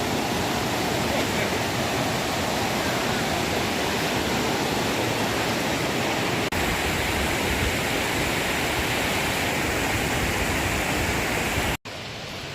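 Steady rushing roar of a waterfall. It breaks off for an instant about six and a half seconds in, then near the end cuts out sharply and comes back quieter.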